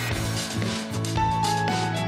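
Instrumental background music with held notes and a regular beat.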